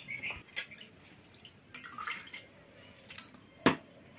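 Yardlong beans being sliced against an upright boti blade: irregular crisp clicks as each cut goes through, with one much louder sharp click near the end.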